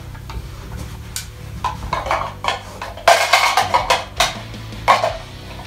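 Background music with percussion, over which come a few sharp knocks and a short clatter about three seconds in.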